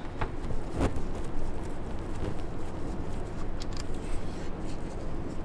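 Gloved hands handling a rubber breather hose and parts in a car's engine bay: soft rustling and scraping, with a couple of sharp clicks in the first second.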